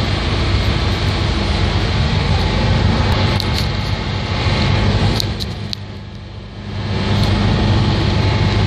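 Ferry under way: the engines run with a steady low drone under the rushing noise of water along the hull. The noise dips for about a second just past the middle, then comes back.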